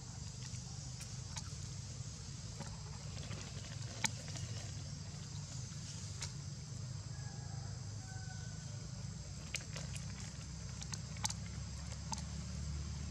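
Forest-floor ambience: a steady low rumble under a steady high insect-like drone, with scattered light ticks and crackles of dry leaves as macaques shift and walk on them.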